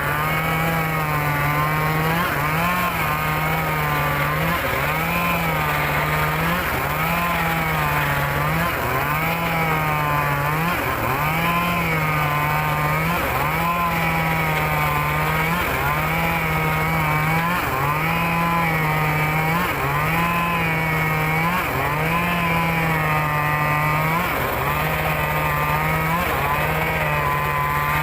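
Engine-driven circular saw blade ripping a log lengthways, running continuously. The blade's whine rises and falls over and over as it bites into the wood, while the engine note steps up and down about every second and a half under the changing load.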